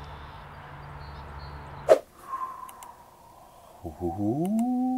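A faint low hum that stops abruptly about two seconds in, then a few faint computer-mouse clicks. Near the end a man's voice rises into a long held "ooh".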